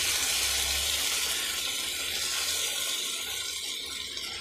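Chicken drumsticks in hot oil hissing and bubbling in a pan as water is added to them, the sizzle slowly dying down as the water cools the pan.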